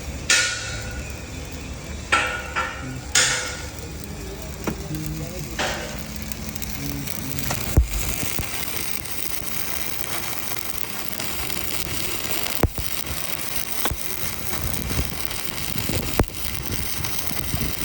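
Electric arc welding crackling and sizzling: a few short bursts in the first six seconds, then a longer, steadier run with occasional sharp clicks.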